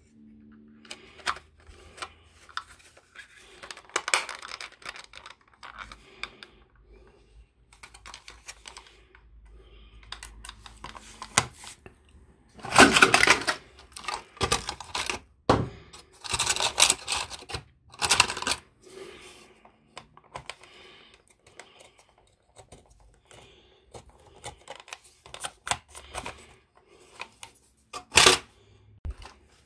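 Hands handling a small black plastic solar display turntable: scattered clicks, knocks and rattles of plastic parts, with a few louder scrapes, each about a second long, around the middle.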